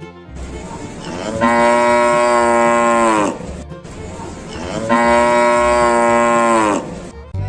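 A cow mooing twice, two long moos of about two seconds each that drop in pitch at the end, over background music with a low beat.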